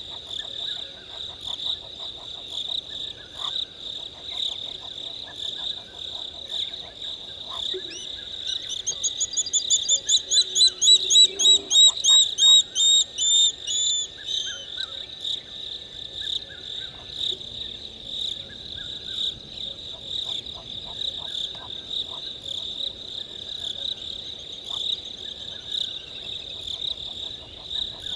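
Night chorus at a waterhole: crickets trilling steadily, with scattered frog-like clicks. About eight seconds in, a bird gives a run of whistled notes that speeds up and grows loud, then slows and fades out after about six seconds.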